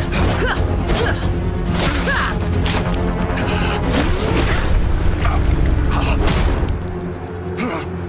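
Game soundtrack music with low held notes, cut through by repeated booms and impact sounds.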